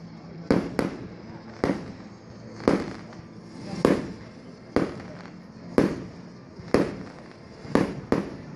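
Aerial fireworks bursting overhead: a string of sharp bangs about a second apart, a couple of them in quick pairs, each trailing off in a short echo.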